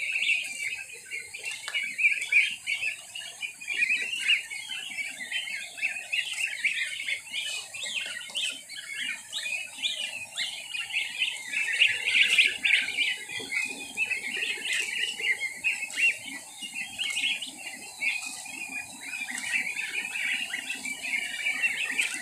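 A flock of goslings about two weeks old peeping continuously, a dense chorus of many overlapping high-pitched calls.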